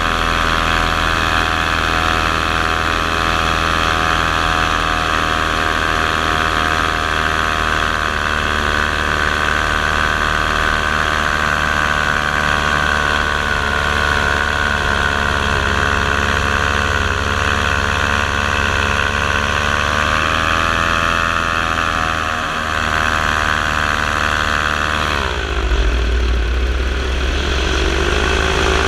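Motor and propeller of a camera-carrying model aircraft running with a steady whine at a constant pitch. Its pitch rises slightly, then drops sharply near the end and gives way to a low rumble.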